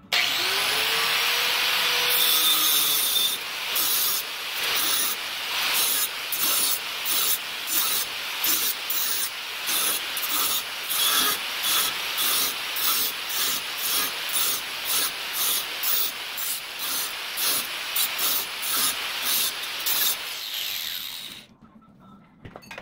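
Angle grinder spinning up with a rising whine, then grinding the steel teeth of a table saw blade to sharpen it: a harsh grinding that swells and eases a little more than once a second, tooth after tooth. The grinding stops suddenly near the end.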